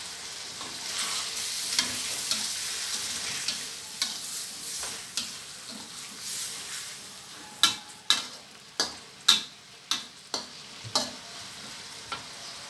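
Bamboo shoots and minced pork sizzling in a stainless-steel wok as a metal spatula stirs and scrapes through them. Past the middle comes a run of about seven sharp clinks, roughly two a second, as the spatula strikes the wok.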